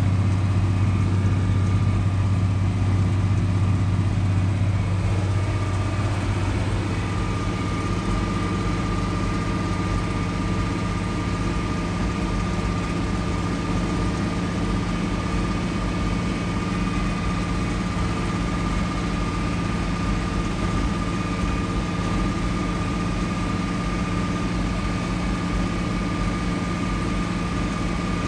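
Farm tractor engine running steadily at road speed while pulling a planter, a constant drone with a steady high whine above it. The sound shifts and drops a little about five seconds in.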